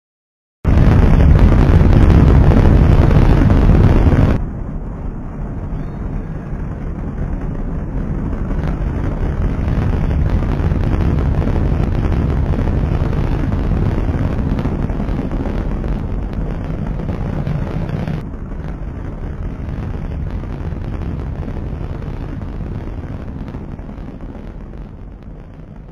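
Trident II D-5 missile's solid-fuel rocket motor lighting off with a sudden, very loud, deep rumble. About four seconds in it drops abruptly to a steady deep roar that swells and ebbs, drops again near eighteen seconds, and slowly fades.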